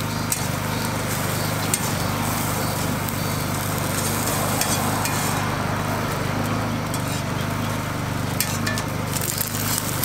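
A steady mechanical hum runs under a metal spatula scraping and tapping on a steel flat-top griddle, with a few sharp clicks, most of them near the end, as omelettes are folded and moved.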